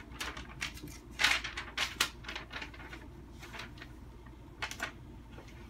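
A quick run of short clicks and scrapes in the first two seconds, then a couple more near the end.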